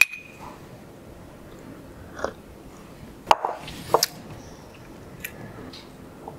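Soft mouth sounds of sipping and tasting broth from a glass. A spoon clinks against the glass once at the start, and there are two sharp taps about halfway through as the glass is set down on a wooden board.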